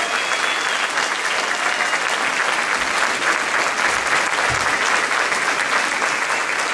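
Audience applauding: a large hall full of people clapping steadily and densely.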